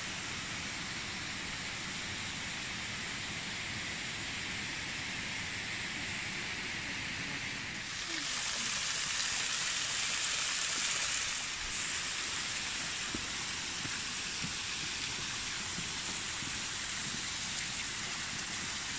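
Steady rushing of running water, which jumps louder for about three and a half seconds near the middle before settling back.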